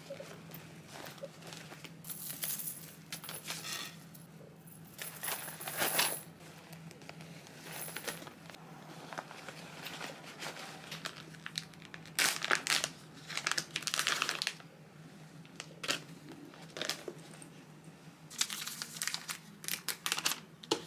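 Handbags being handled and items moved between them: rustling and clicking of a geometric bag's hard triangular panels and a leather shoulder bag, in several short bursts over a faint steady hum.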